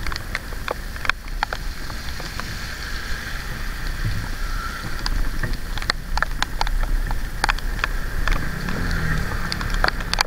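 Motorcycle ride in heavy rain: a steady rush of wind and a low engine hum, with many irregular sharp taps of raindrops striking the camera.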